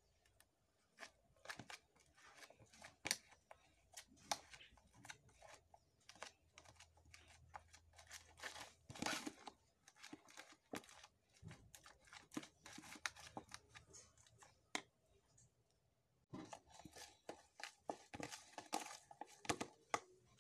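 Faint, irregular scraping and clicking of a fork and hands working in plastic bowls while pancake ingredients are mixed, with a short lull about three-quarters through.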